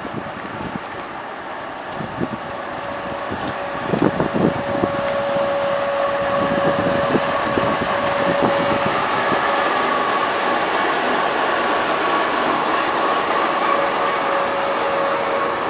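Passenger train hauled by a diesel locomotive rolling past the platform, its wheels knocking over the rail joints, loudest from about four seconds in, with a steady high whine over the rumble of the coaches.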